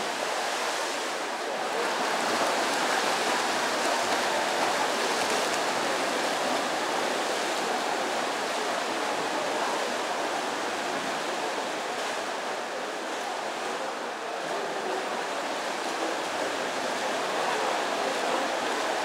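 Swimmers splashing through a freestyle race in an indoor pool, heard as a steady, echoing wash of water noise.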